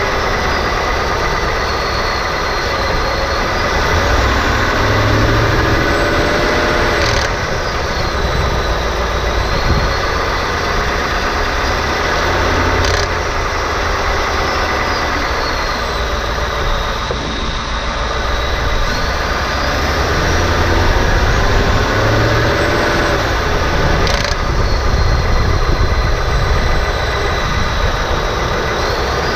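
2018 Ford F-150 engine and drivetrain running under gentle throttle, the pitch rising and falling several times as throttle is added and let off. Three sharp clacks stand out, spread across the stretch. They fit the gentle rattle or clack from near the transmission that the owner hears when lifting off the throttle.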